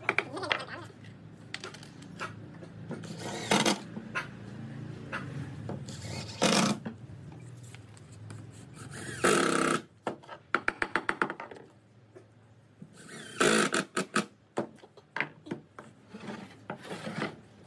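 Bench woodworking on pine beams: sharp hammer knocks on the wood, and a cordless drill running for about a second around the middle, followed by quick clicks and knocks as the pieces are handled.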